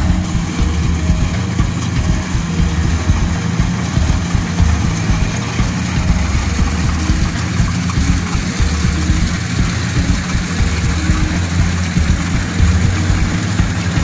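Kubota DC-68G combine harvester's diesel engine running steadily while it cuts and threshes standing rice, a dense low pulsing drone.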